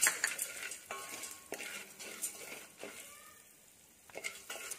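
A metal spoon stirs dried corn kernels in oil in an aluminium pressure-cooker pot, giving irregular scrapes and clinks against the metal with a light sizzle. There is a short lull about three seconds in, then a few more strokes.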